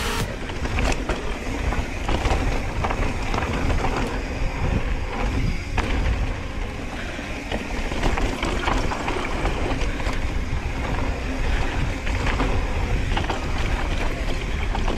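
Mountain bike being ridden on a rough dirt trail: wind buffets the microphone in a constant low rumble, while the bike's chain and frame rattle and the tyres knock over rocks in frequent sharp clicks.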